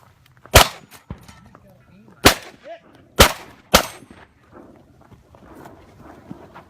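Four shotgun shots: one, a second and a half later another, then two close together about half a second apart, each with a short ringing tail. A fainter knock follows the first shot.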